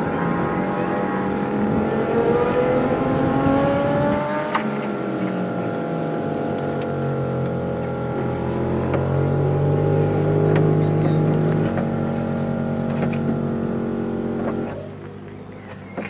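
Classic racing sidecar outfit's engine running on the stand, its revs climbing slowly twice and held, then switched off near the end.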